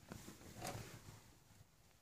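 Near silence, with a faint soft rustle a little over half a second in that fades away.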